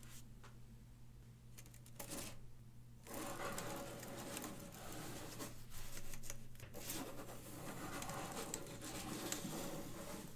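Light plastic clicking and rubbing of LEGO A-shaped wedge plates shifting against one another as the flexible ring is bent and slid across a table by gloved hands. A few faint ticks at first, then from about three seconds in a steady rustle of many small clicks.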